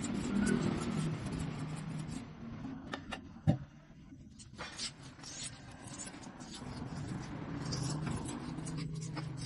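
Paintbrush scrubbing oil onto the surface of a concrete mold in short, scratchy strokes, over a low background hum. A single sharp knock about three and a half seconds in.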